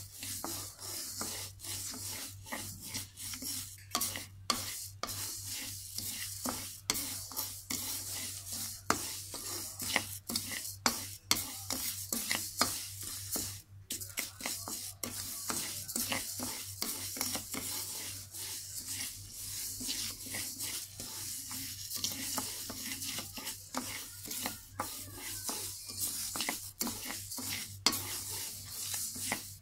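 Wooden spatula stirring and scraping dry glutinous rice around a metal wok as the grains are dry-roasted for khao khua. The strokes come as an uneven run of scraping and rattling, over a steady low hum.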